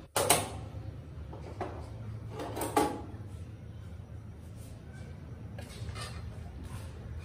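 A few separate knocks and clatters of things being handled in a kitchen, the loudest just after the start and about three seconds in, over a steady low hum.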